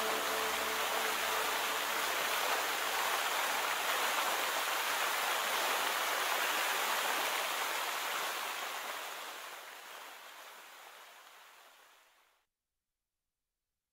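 Steady rush of splashing fountain water that fades out over a few seconds to silence near the end.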